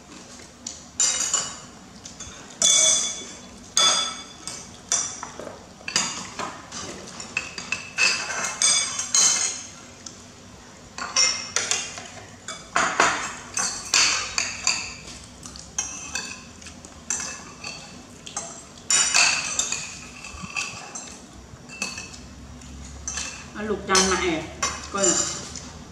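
Metal spoons clinking and scraping against ceramic plates and bowls in many irregular, sharp strikes that ring briefly. Near the end, a short wavering vocal sound.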